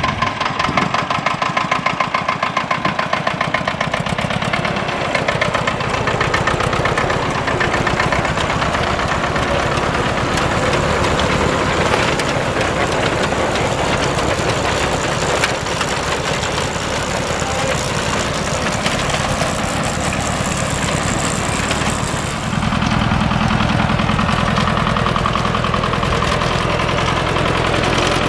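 Vintage Steyr tractor's diesel engine running steadily under load as it pulls a reaper-binder cutting grain, with the clatter of the binder's mechanism. The engine's low throb becomes fuller and a little louder about three-quarters of the way through.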